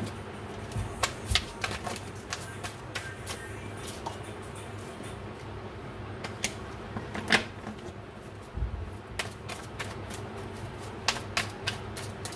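A tarot deck being shuffled by hand: a run of irregular sharp clicks and taps from the cards, over a steady low hum, with a few duller knocks.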